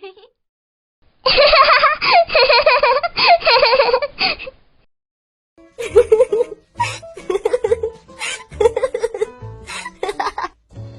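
A little girl giggling and laughing in a high voice. After a short pause, a second recording of a little girl laughing follows, in bursts.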